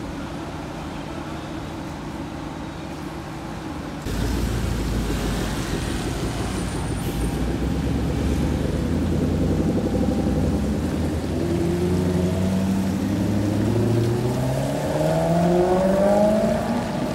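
A car's engine accelerating, its note climbing in pitch in several steps over the last several seconds as it pulls through the gears, over a steady low traffic rumble that gets louder about four seconds in.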